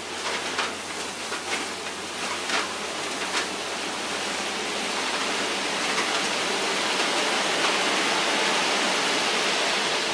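Load of fill dirt sliding out of a tipping dump-truck bed: a steady rushing hiss that swells gradually from about halfway through. A few light clicks come in the first few seconds.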